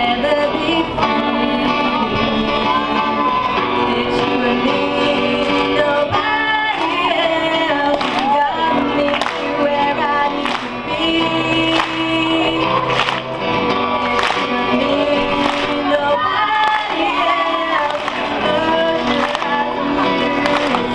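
A song playing: singing over instrumental backing.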